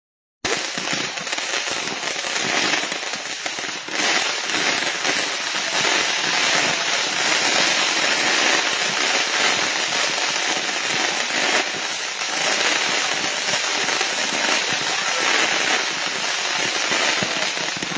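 Consumer-grade firework cake on the ground firing in rapid succession: a dense, unbroken crackle of small reports that starts about half a second in and keeps going without pause.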